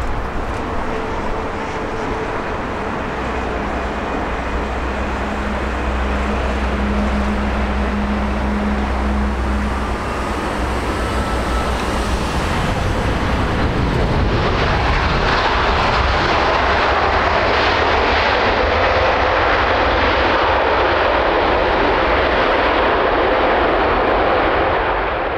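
Boeing 787 Dreamliner jet engines during a landing: a steady engine drone with a low hum as the airliner comes in and touches down. The sound swells to a louder, fuller roar about halfway through as the jet rolls out on the runway.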